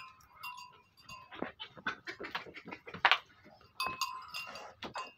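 A goat kid's short calls mixed with a string of sharp clinks and knocks, the loudest about three seconds in.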